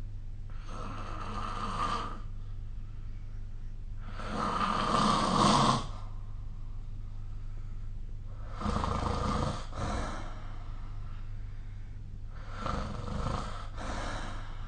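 A sleeping person snoring: four snores about four seconds apart, each lasting around a second and a half, the second one the loudest. A steady low hum runs underneath.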